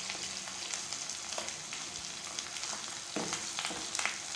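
Fish roe and onions sizzling in hot oil in a nonstick kadai, with a steady frying hiss. A metal spatula stirring it scrapes and knocks against the pan a few times, mostly in the second half.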